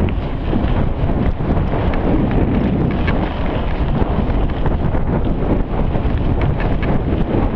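Wind buffeting the microphone of a camera riding on a mountain bike at speed, over a steady rumble and frequent short knocks and rattles from the bike on rough dirt trail.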